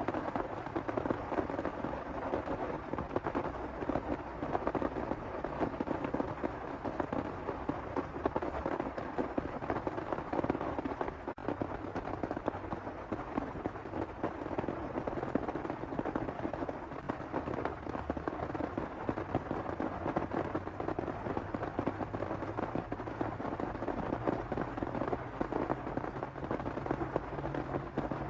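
Heavy rain falling steadily, a dense crackle of drops beating on a surface.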